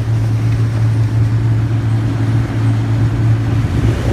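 Boat motor running at a steady speed, a low, even drone with no change in pitch.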